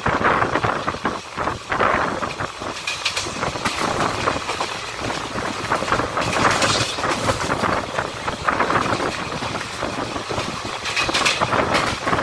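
Express train coach running at speed, heard from the open door: a steady rush and rumble of wheels on the rails and wind. A few brief harsher, hissier spells come and go.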